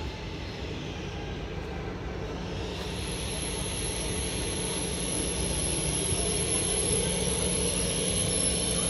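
ED250 Pendolino electric trainset approaching, a steady rumble and whir that grows louder as it nears. A thin high steady whine joins about three seconds in.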